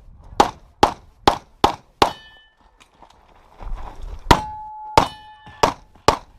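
Handgun shots fired in quick strings during a practical pistol stage: five shots about 0.4 s apart, a pause of about two seconds, then four more. Steel targets ring after several of the hits, one with a clear tone that carries for over half a second.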